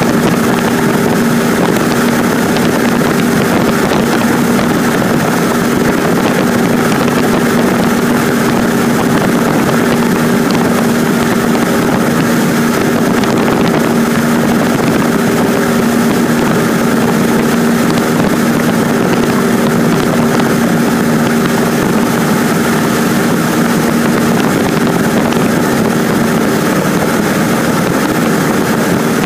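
Cessna 150's Continental O-200 four-cylinder engine and propeller droning steadily in cruise, heard inside the small cabin as an even, loud hum over a constant rush of noise.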